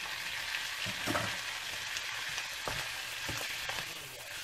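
Drained spaghetti sizzling in a frying pan of hot olive oil with fried onion and mushrooms. A few short knocks and scrapes come as it is tipped in and stirred with a wooden spatula.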